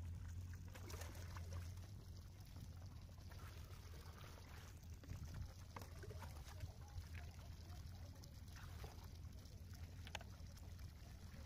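Faint stream of water pouring from a pipe and splashing onto wet sand and a shallow puddle, with a steady low hum underneath.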